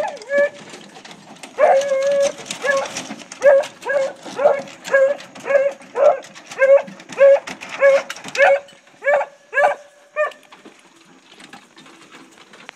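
A deer hound barking at the dog box as the hounds are let out: a longer drawn-out bay, then a steady run of loud barks at about two a second that stops about ten seconds in.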